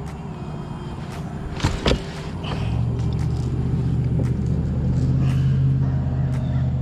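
A couple of sharp clicks, then an engine's steady low hum that sets in about two and a half seconds in and keeps running.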